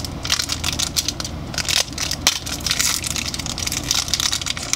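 A small foil blind bag crinkling and crackling in quick, irregular bursts as hands pull it open.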